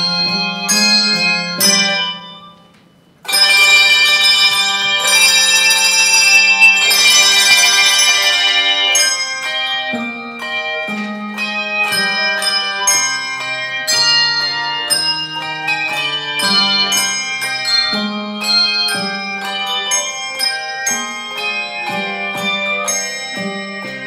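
Handbell choir ringing a tune in chords, each note struck and left to ring. About two seconds in the ringing fades to a brief pause. Then many bells sound loudly together for several seconds before the melody carries on more softly.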